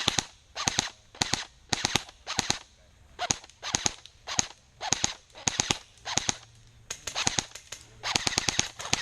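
Airsoft guns firing in short bursts of two or three shots about every half second, then a quicker, longer string of shots near the end.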